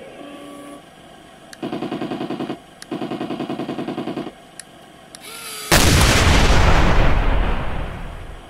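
Heng Long 1/16 Tiger I RC tank's sound unit playing its machine-gun effect in two rapid bursts of about a second each, then a loud main-gun cannon shot that fades over a couple of seconds.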